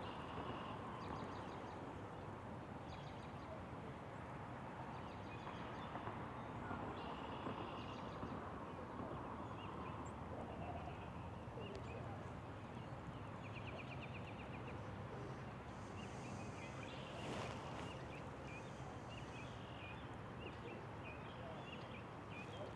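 Small birds chirping and trilling again and again over a faint, steady outdoor hiss from the light rain.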